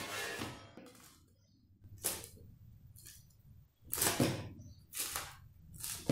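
Crisp, freshly baked pizza crusts crackling as fingers press and squeeze the rims, about five short crunches roughly a second apart. One crust is from well-proofed dough and one from overproofed dough, and they sound much the same.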